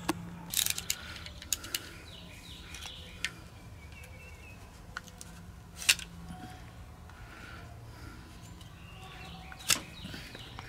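Scattered light clicks and rustles of hands handling a rope and a plastic boat fender, with two sharper clicks, one about six seconds in and one near the end. Faint bird chirps in the background.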